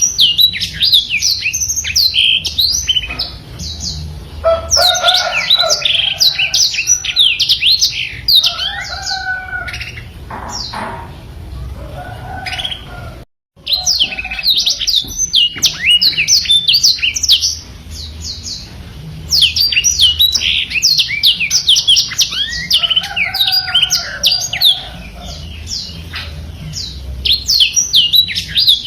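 Black-throated canary (blackthroat) singing a long, fast run of high chirps and trills without pause. The recording cuts out briefly about 13 seconds in, then the song resumes.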